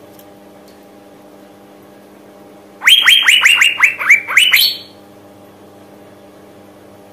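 Female Asian fairy-bluebird calling: a loud, rapid run of about ten sharp downward-sliding notes lasting about two seconds, starting about three seconds in, over a faint steady hum. It is the female's call to males.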